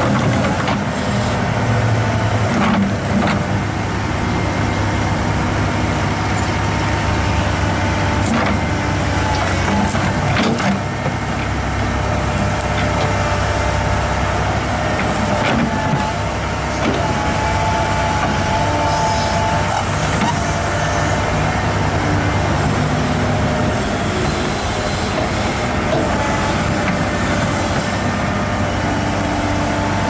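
Komatsu PC200-8 hydraulic excavator working its bucket into the dirt: the diesel engine runs steadily under load with a steady hydraulic whine, and a few sharp metallic clanks come from the bucket and tracks.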